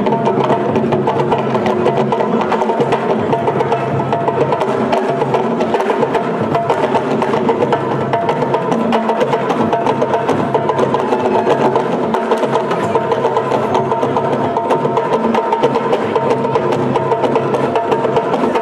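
Senegalese percussion ensemble drumming, fast and dense, with sharp hand-drum strikes playing continuously.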